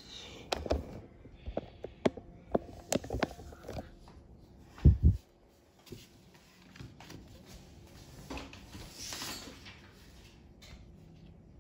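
Scattered clicks and knocks, then one heavier low thump about five seconds in and a soft rustling swell near the end.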